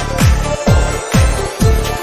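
Background electronic dance music with a steady kick drum beat, about two beats a second.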